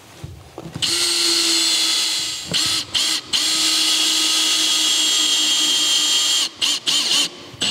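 Makita 18V cordless drill-driver driving screws through drywall into a wooden backing piece. The motor runs in two steady spells, about a second and a half and then about three seconds, with short trigger blips between them and near the end.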